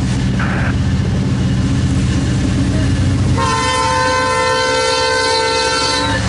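A train runs with a steady low rumble. About halfway through, its Nathan Airchime P5 five-chime horn sounds one long chord blast of about three seconds, which cuts off just before the end.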